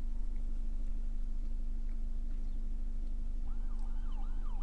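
A steady low rumble, then about three and a half seconds in an ambulance siren starts up in a fast up-and-down yelp, about three sweeps a second, heard muffled from inside a car.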